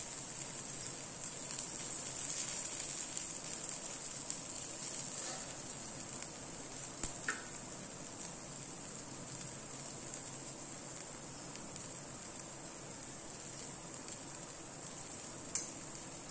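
Ragi dosa frying in oil on a hot flat tawa, its second side cooking after the flip: a steady, quiet sizzle, with a faint tick about seven seconds in and another near the end.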